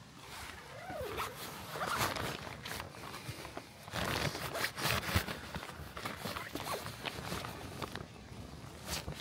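Zip on a tent's window cover being pulled closed, a run of irregular rasps.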